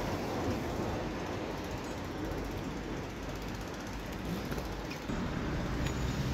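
Steady low outdoor rumble with a few faint clicks and creaks.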